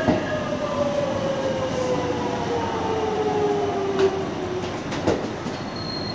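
Seibu 6000-series electric train braking to a stop. Its traction motor whine falls steadily in pitch as it slows and fades out, and a few sharp clicks come near the end.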